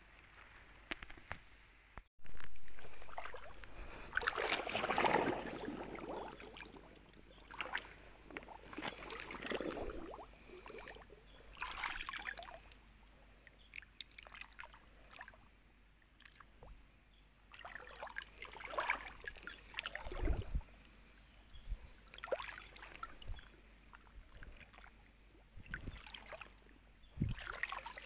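Shallow stream water splashing and sloshing in irregular bursts as a hand stirs and reaches through it.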